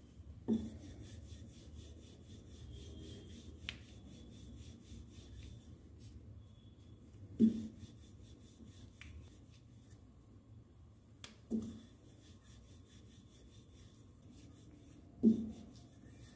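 Wooden rolling pin rolling out thin momo dough wrappers on a silicone mat: a soft, faintly rhythmic rubbing, broken by four dull knocks a few seconds apart.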